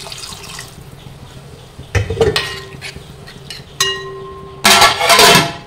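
Metal cooking pots and utensils clinking, with one clang about four seconds in that rings on for most of a second. Near the end comes a louder rush of noise lasting about a second.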